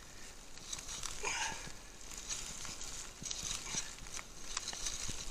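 Irregular knocks and scrapes of a digging tool working into wet, rocky ground to recover a metal-detector target.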